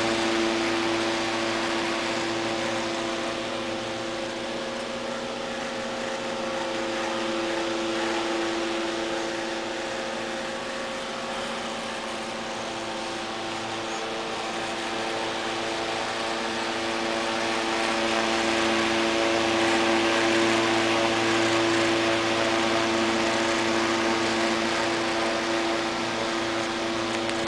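Antique Martinot 10-inch oscillating electric desk fan running: a steady motor hum over the rush of the spinning blades. Its loudness slowly rises and falls as the head oscillates back and forth.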